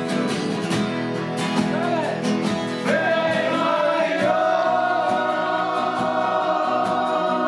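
Live acoustic folk song: several acoustic guitars strummed in a steady rhythm while men sing together in harmony, holding a long sung note from about three seconds in.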